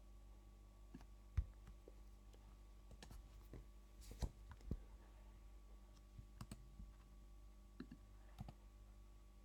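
Faint, irregular clicks of a computer keyboard and mouse as code is deleted and retyped, over a low steady hum.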